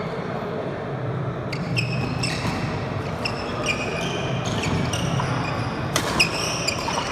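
Badminton players' court shoes squeaking in short, quick chirps on a wooden court floor during a rally, with a sharp racket strike on the shuttlecock, the loudest sound, about six seconds in.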